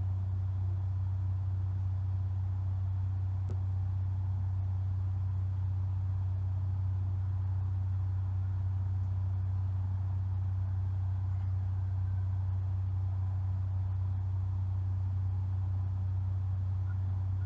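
Steady, unchanging low-pitched hum, which the uploader takes for a food truck idling outside.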